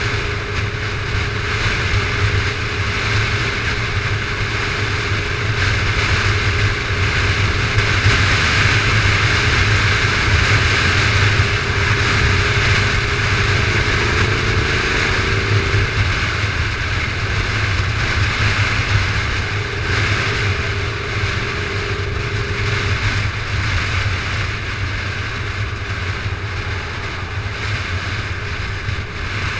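Motorcycle cruising at steady speed: wind rushing over the camera microphone on top of a steady low engine and road drone, swelling slightly a few seconds in.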